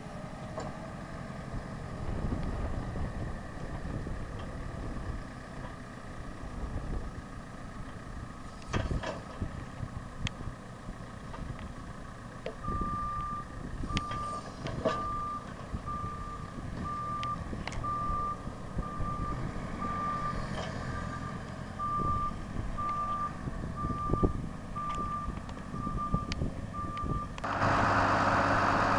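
JCB telehandler's diesel engine working at a log pile, with a few sharp knocks; from about halfway through its reversing alarm beeps steadily, roughly once a second. Near the end the sound jumps to a louder, steady engine hum as the machine is seen closer.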